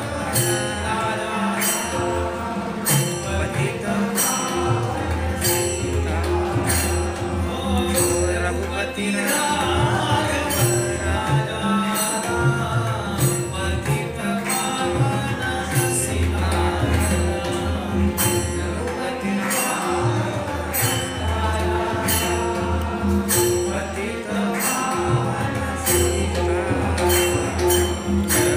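Marathi devotional song: a man singing, accompanied by tabla, over a steady jingling beat from hand-held percussion.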